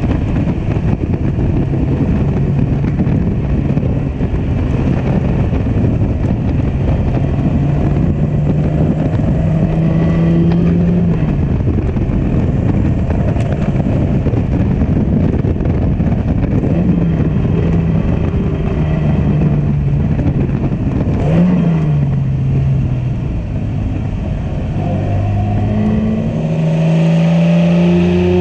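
Aston Martin DBR2 recreation's engine pulling along the road in an open cockpit, heavy with wind and road rush. Its pitch climbs steadily, drops at a gear change about eleven seconds in, and gives two brief rev blips later on; near the end a new stretch begins with the engine accelerating again.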